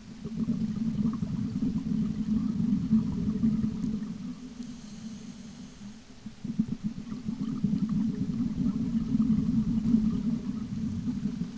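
Underwater rumbling and gurgling of a scuba diver's exhaled bubbles streaming past the camera housing, in two long breaths with a quieter stretch and a soft hiss between them about four to six seconds in.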